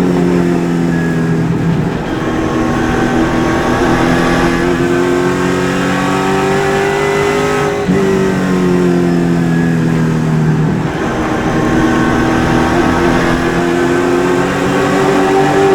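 Super late model race car's V8 engine under racing load, heard on board: the revs climb steadily, drop sharply about eight seconds in and sag for a few seconds, then climb again near the end, as the throttle is lifted for a turn and reapplied.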